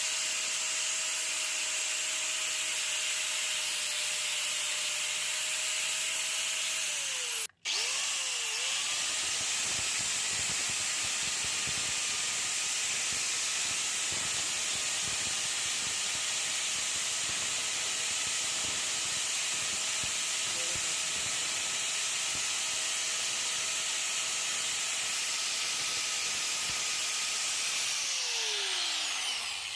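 Angle grinder fitted with a homemade paper cutting disc, running at full speed with a steady high whine. Its pitch sinks and the sound cuts out for a moment about seven seconds in, then it runs again, and near the end it winds down.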